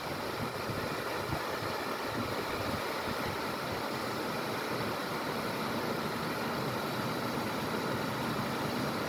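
A waterfall's steady rushing noise, even and unbroken.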